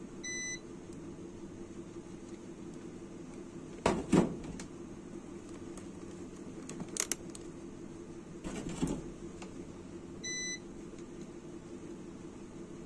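Two short electronic beeps about ten seconds apart, with a few knocks and clicks between them, the loudest about four seconds in, over a steady low hum.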